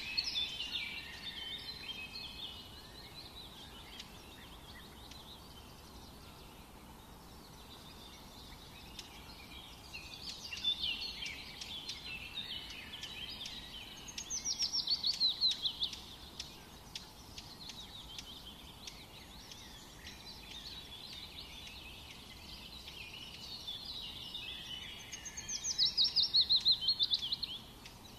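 Songbirds singing in bursts of high chirps, with fast runs of repeated notes about halfway through and again near the end, over a faint steady background hiss.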